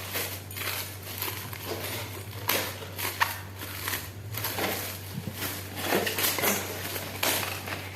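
Gift wrapping being torn open and crumpled by hand: a string of irregular rustling, crinkling tears.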